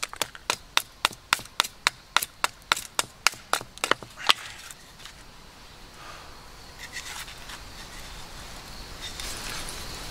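A large knife chopping into a wooden spoon blank stood upright on a wooden stump, with quick, sharp strikes about four a second. The last blow, a little over four seconds in, is the loudest, and then the chopping stops.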